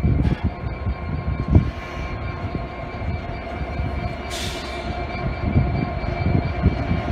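Class 66 diesel-electric freight locomotive approaching slowly under power, its two-stroke diesel engine giving a steady deep drone with a constant whine over it. A brief hiss about four seconds in.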